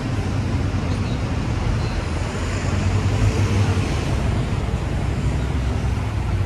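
City street traffic noise with a double-decker bus's engine running close by, a steady low rumble that swells a little about three seconds in.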